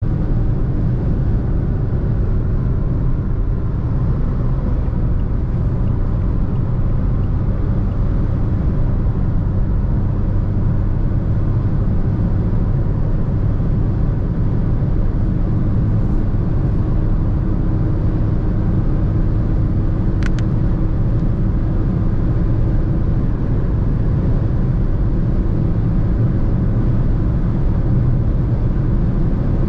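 A 2020 Fiat Egea (Tipo) hatchback with a 1.6 diesel engine cruising at motorway speed: a steady low rumble of engine and tyres on the road with a faint constant drone. A brief high chirp comes about twenty seconds in.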